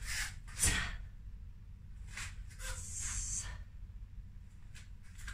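Movement sounds of a taekwondo practitioner in uniform: a few short rustles and a soft thud of a foot on the floor about two-thirds of a second in, then a breathy hiss around three seconds in.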